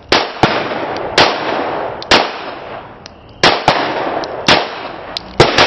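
A handgun fired about nine times at an irregular pace, some shots in quick pairs. Each sharp crack is followed by a trailing echo.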